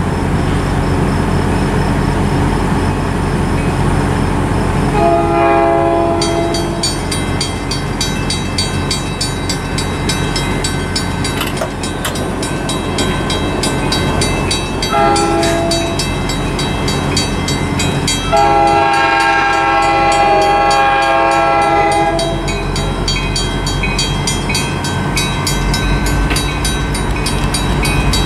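Approaching train's air horn sounding three times: two shorter blasts about five and fifteen seconds in, then a long blast lasting several seconds. From about six seconds in, a grade-crossing warning bell rings in a rapid, even rhythm, over the steady low rumble of the oncoming train.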